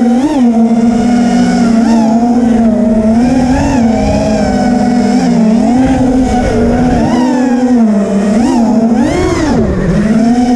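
FPV freestyle quadcopter's brushless motors (BrotherHobby R3 2207 2550kv, 5-inch tri-blade props) whining steadily, the pitch dipping and swelling as the throttle changes, with two quick rising throttle punches near the end.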